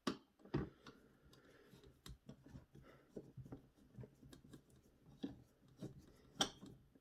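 Faint scraping and scattered clicks of a screwdriver working the spring-loaded mounting screws of a stock CPU cooler, with a sharper click about half a second in and another near the end.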